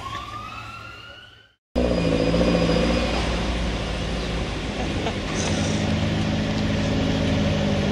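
Chrysler Turbine Car's gas turbine whining, rising in pitch, then fading out about a second and a half in. After a brief silence a different car's engine runs steadily at low revs.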